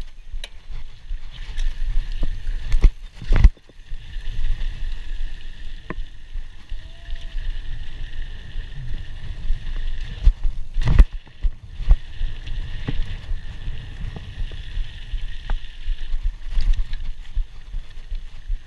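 Scott Scale 960 hardtail mountain bike ridden fast over dirt jumps, heard from a chest-mounted camera: steady rumble of tyres on dirt with wind on the microphone. Sharp knocks from the bike on landings, loudest about three seconds in and again about eleven seconds in.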